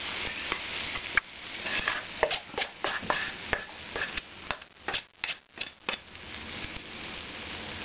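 Cornbread batter being scraped and knocked out of a stainless steel mixing bowl into a preheated cast iron skillet. Irregular metal scrapes and knocks come a few a second and stop about six seconds in, over a faint sizzle of batter in the hot pan.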